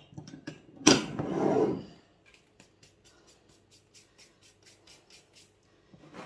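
Mixing dough in a bowl: a sharp knock about a second in with about a second of rushing sound after it, then a run of light, even clicks, about four a second, as a utensil stirs the salted flour against the bowl.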